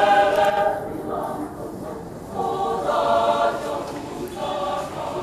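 Mixed church choir singing Christian music in sustained chords. The phrases swell and fade: a loud chord at the start, softer singing, a swell about three seconds in and a new entry near the end.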